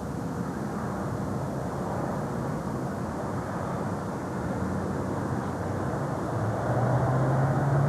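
Steady low rumble of engine noise, with a droning hum that grows louder about six and a half seconds in.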